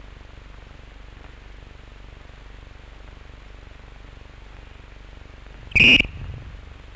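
Steady hiss of an old cine-film soundtrack, broken about six seconds in by one short, loud, high blast of an umpire's whistle.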